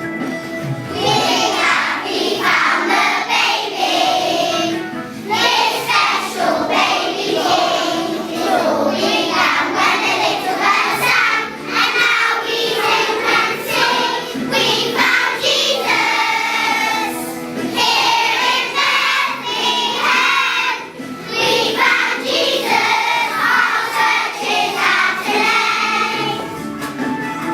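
Music with a choir singing, voices with vibrato over instrumental accompaniment.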